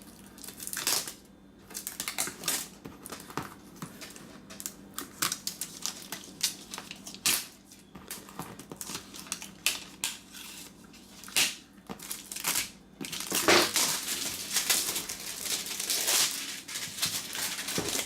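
Packaging wrapping being crinkled and torn open by hand, in irregular crackles that grow denser and louder near the end.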